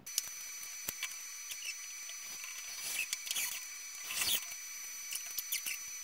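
Faint scraping, rubbing and light clicks from a plastic central-vacuum wall casing being handled and held against a wooden wall stud, over a steady high hiss with a thin whine.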